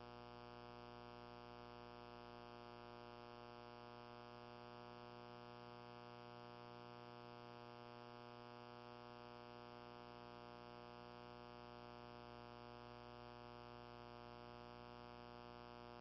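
Near silence with a faint, steady electrical hum made of many even overtones.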